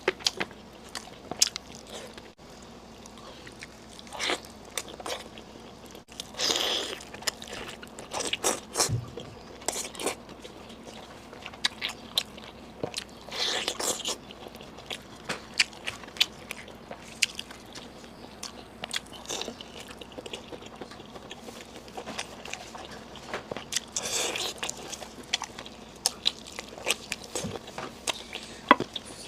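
Close-miked eating: crunchy bites and chewing, with many sharp crackling clicks and a few longer, louder crunches.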